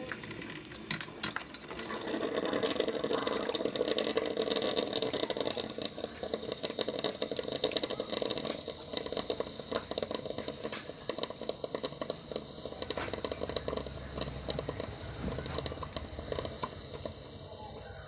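Tefal Perfecta CM4428 drip coffee maker brewing: a dense, rapid crackling sputter of hot water, loudest in the first half, with a low rumble coming in near the end.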